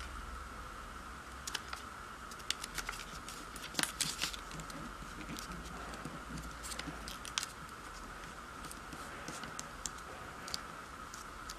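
Sheet of origami paper being folded and pressed flat by hand: scattered short paper crackles and clicks, thickest about four seconds in, over a steady faint hum.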